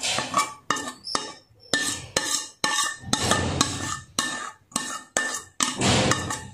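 Steel spoon scraping and knocking against the inside of a steel kadhai, scooping thickened, cooled milk out into a steel bowl: an uneven run of metal scrapes and clinks, a few a second.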